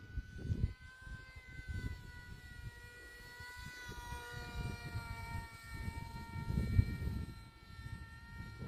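Brushless electric motor and propeller of a radio-controlled Lightning F6 model aircraft whining in flight, its pitch wandering slowly up and down. Gusty wind rumbles on the microphone underneath, strongest near the end.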